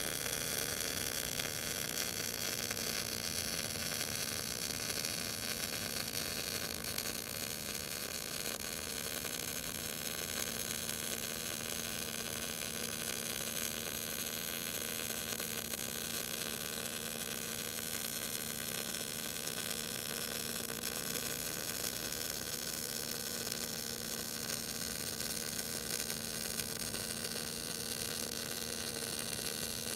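MIG (wire-feed) welding arc running one continuous bead at the maximum inductance setting (9), at about 20 volts: a steady, bright hiss with a faint low hum underneath.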